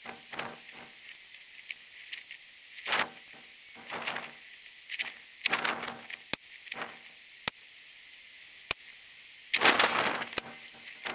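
Gusty wind buffeting the microphone in irregular rushes, the strongest near the end, with three sharp clicks about a second apart in the middle.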